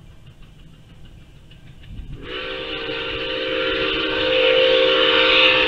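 Whistle of the Nickel Plate Road 765 Berkshire steam locomotive, sounding one long blast of several notes together. It starts about two seconds in, swells louder, and cuts off suddenly near the end.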